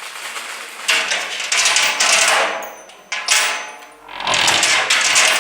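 A door rattling and knocking in its frame in four or so bursts as a dog pushes and paws at it.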